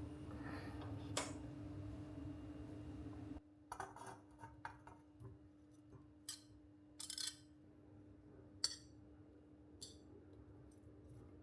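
Kitchen food-prep sounds: light, scattered clinks and taps of utensils against dishes and glass. A steady background hum stops suddenly about three seconds in.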